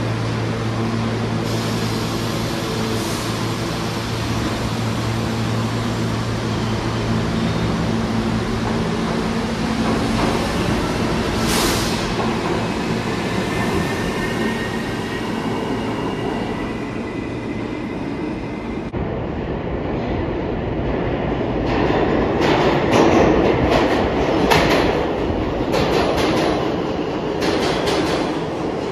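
New York City subway train running, with a steady low hum and then a faint rising motor whine. About two-thirds of the way in the sound changes abruptly to a train passing with its wheels clattering over rail joints in a run of repeated knocks.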